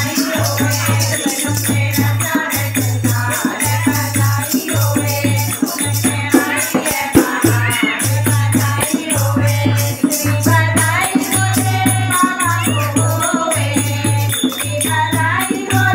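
Group of women singing a Hindu devotional kirtan, with a rattle keeping the rhythm and a low beat about once a second.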